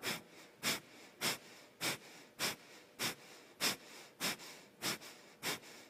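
Rapid, forceful breaths out in a steady rhythm, about ten short sharp puffs of air at a little under two a second, picked up close on a headset microphone. This is a pumping breath exercise in which the abdomen contracts to drive each exhalation.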